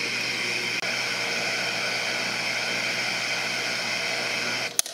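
Fan of an Aoyue 2703A+ hot air gun blowing steadily during the station's automatic cool-down cycle after switch-off, then cutting off with a click near the end once the gun has cooled to a safe temperature.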